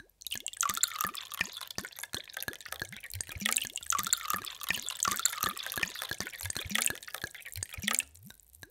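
Water pouring in a thin stream into a glass, a steady splashing with many quick plops and bubbles rising in pitch; it stops near the end.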